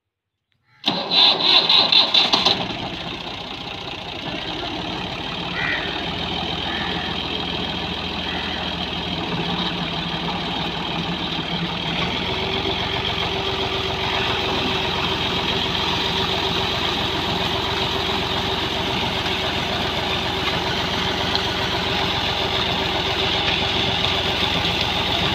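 Fiat 480 tractor's three-cylinder diesel engine cranked on the starter in loud pulses and catching about a second in, then running steadily. About halfway through the engine note changes and a steady hum joins it, as the tractor takes up the load of driving the tube-well water pump.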